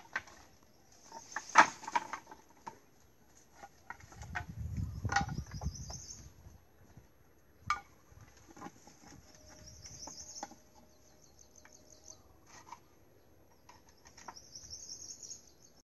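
Scattered knocks and clatters of bamboo poles being handled and fitted on a bamboo boat frame, the sharpest about one and a half seconds in. Short high chirping trills sound in the background several times.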